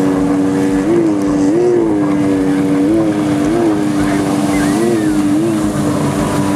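Jet ski engines running hard at high revs with a steady whine whose pitch briefly rises and falls about six times. Water spray hisses underneath.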